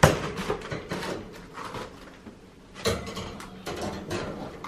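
Knocks and rattles of a metal wire rabbit cage as its door is opened: a sharp knock at the start and another about three seconds in, with scattered small clicks and rustling of the newspaper and hay bedding between.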